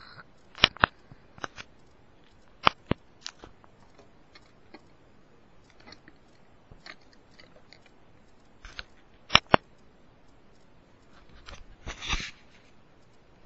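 Handling noise from fingers on the camera and pieces: sharp clicks and taps, several in close pairs, then a short rubbing scrape near the end.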